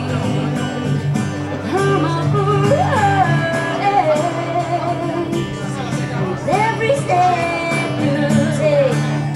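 A woman singing to a strummed acoustic guitar, performed live as an acoustic duo.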